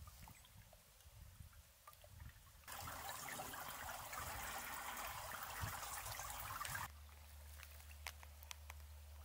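Faint trickling of shallow water running under and through holes in thin ice. The sound changes abruptly about a third of the way in to a louder, steady hiss of running water lasting around four seconds, then drops back to a quiet trickle with small ticks.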